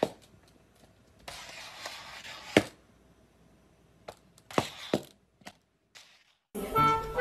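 A plastic cup knocking and scraping on a tiled floor as a puppy pushes it around with its head: a knock, a stretch of scraping ending in a sharp knock, then a quick run of knocks. Music comes in near the end.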